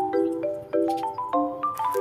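Background music: a bouncy melody of short, evenly paced notes over chords, about three notes a second.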